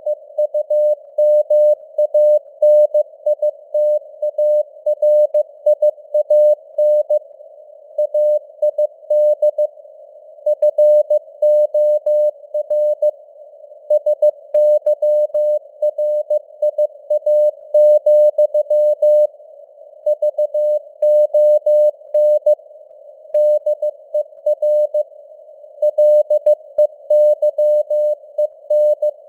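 Morse code (CW) sent at 15 words per minute: a single steady beep tone keyed on and off in dots and dashes. A narrow band of simulated radio hiss sits around the tone, as heard through a receiver's CW filter.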